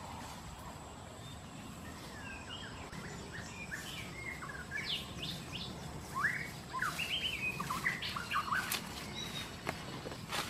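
Birds chirping in quick runs of short rising and falling notes, starting about two seconds in and busiest in the second half. A few sharp rustles or clicks come near the end.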